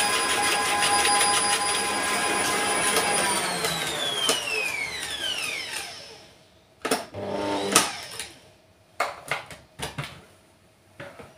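Electric stand mixer running at high speed, beating eggs, sugar and oil in a plastic bowl. Its whine slides down as the motor winds down and stops about six seconds in. A short burst of the motor follows, then several plastic clicks and knocks as the mixer arm is handled and raised.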